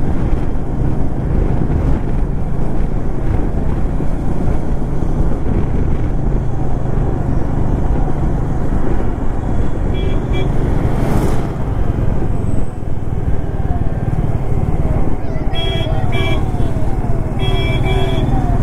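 Motorcycle engine running steadily while riding along a road in traffic. Short vehicle horn toots about ten seconds in and several more near the end.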